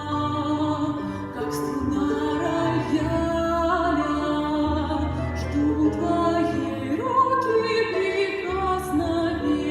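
Music: a solo voice singing in an operatic style, its held notes wavering with vibrato, over sustained instrumental accompaniment.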